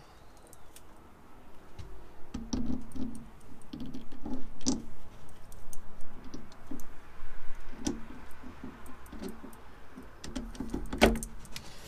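Small metal clicks and knocks as a lathe's front toolpost block is handled, set onto the cross slide and worked by its handle, with one louder knock near the end.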